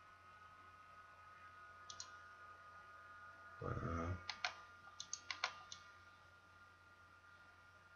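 Computer mouse clicks: a single click about two seconds in, then a quick run of about half a dozen clicks a little later, over a faint steady electrical hum. A short murmur of voice comes just before the run of clicks.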